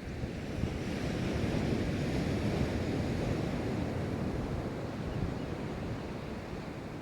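Pacific Ocean surf: a wave breaking and washing in as a rushing noise that builds over the first second or so, then slowly eases.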